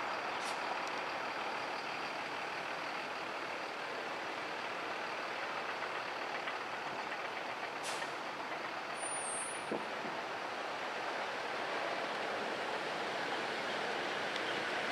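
Steady, even vehicle noise with no clear rhythm, horn or bell pattern.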